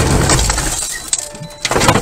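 Car crash aftermath as the car comes to rest on its side: loud scraping and crunching that dies away over the first second. Sharp clattering follows near the end.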